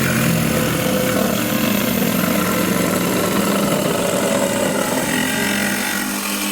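A motor-driven woodworking power tool running steadily, a dense noisy whir with a faint low hum.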